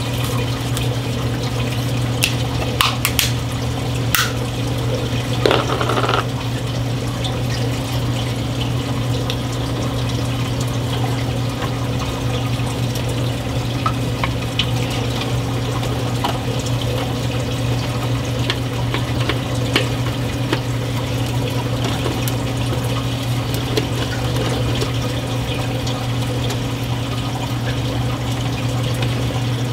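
Reef aquarium sump running: a steady rush of water over a low, even pump hum. In the first six seconds there are a few sharp plastic clicks and a brief rustle as a reagent bottle and its screw-on intake cap are handled.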